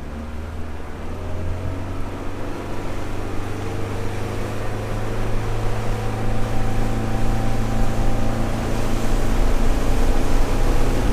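Small boat's engine running under way, its note climbing slowly and getting louder as it picks up speed, over a steady wash of wind and water noise.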